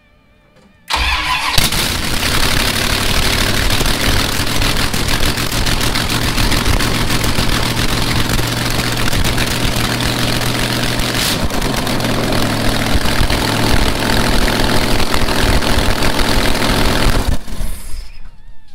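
Chrysler 360 LA small-block V8 with new J cylinder heads firing up about a second in and running loud straight out of the open exhaust ports, since no manifolds or headers are fitted. The revs shift as the throttle is worked by hand at the carburettor, a sharp pop comes midway, and the engine is shut off shortly before the end.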